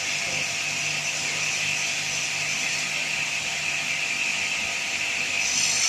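Wood lathe running with a steady, even mechanical whine. A brighter hiss comes in near the end.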